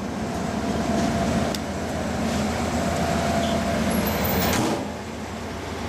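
Amtrak passenger train departing, its cars rolling past with a steady rumble of wheels and running gear. A brief sharp noise cuts in about four and a half seconds in.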